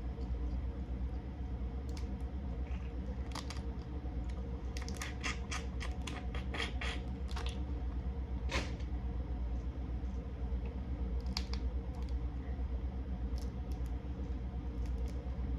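A cooked crab's shell being cracked and pulled apart by hand: a run of sharp cracks and snaps, thickest in the middle, over a steady low hum.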